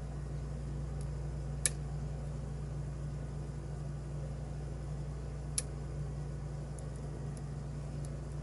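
Faint clicks of a lock pick working the pins of a pin-tumbler lock, two sharp ones about four seconds apart, over a steady low hum.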